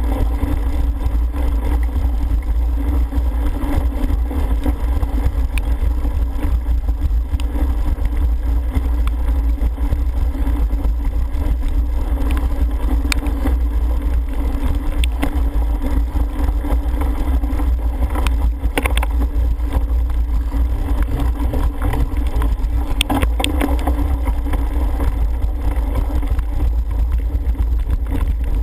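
Steady, heavy rumble of wind buffeting and rough ground on a helmet-mounted camera during a cyclocross race ride over wet grass and mud, with a few sharp rattles from the bike, clustered about two-thirds and four-fifths of the way through.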